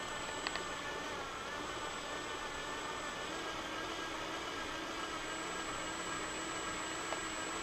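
Milwaukee cordless drill running steadily, its bit spinning in a metal can of ice cream mix packed in crushed ice and rock salt to churn it, with a couple of light clicks about half a second in and near the end.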